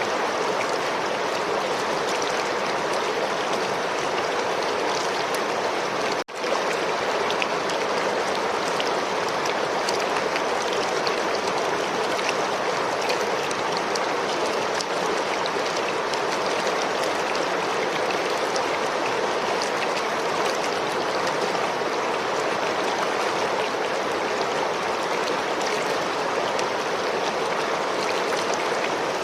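Flowing river water rushing and splashing steadily over rocks. The sound cuts out for an instant about six seconds in.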